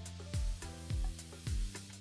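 Background music with a steady kick-drum beat, a little under two beats a second, over held pitched notes.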